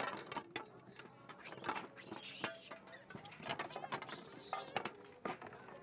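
A crowd of long-tailed macaques scrambling over a table of food: irregular clicks, knocks and rustling clatter as they grab and handle it.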